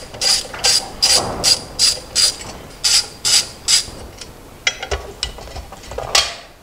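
Hand ratchet clicking in a steady rhythm, about ten clicks in four seconds, as bolts are backed out of a CNC Z-axis plate. A few scattered clicks follow and one sharper clack comes near the end.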